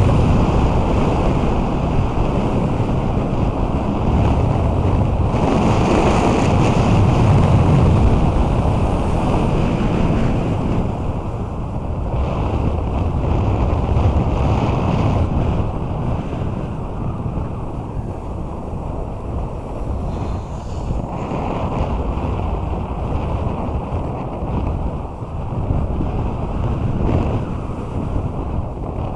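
Wind buffeting an action camera's microphone during a fast snowboard descent, mixed with the board's hiss and scrape over packed snow: a steady, loud rushing that eases somewhat after about fifteen seconds.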